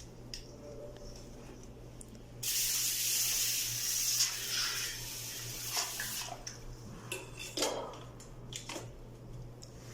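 Water running from a tap into a wash basin, turned on suddenly about two and a half seconds in, strongest for a couple of seconds before easing off. A few sharp clinks and knocks follow near the end, over a steady low hum.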